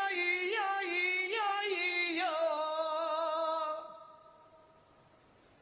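A single voice singing unaccompanied: a run of notes that bend up and down, then one long held note that dies away about four seconds in, leaving only faint background noise.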